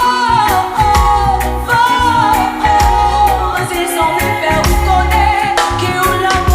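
Song with a sung melody over bass and drums.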